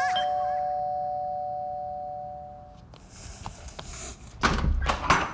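Two-note doorbell chime, ding-dong: a higher note and then a lower one ringing together and fading out over about three seconds. A short, loud burst of noise comes near the end.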